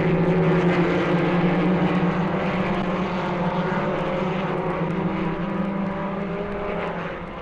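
Recorded Grand Prix racing car engine running at speed on a 1960s Scalextric sound-effects record: a steady, held engine note that slowly fades toward the end.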